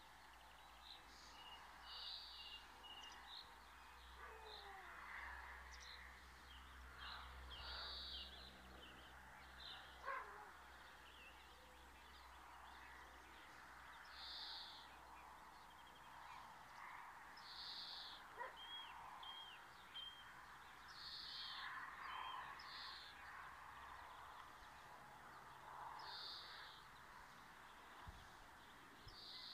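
Faint bird calls: short high chirps recurring every few seconds, with smaller hooked chirps in between, over a soft outdoor background.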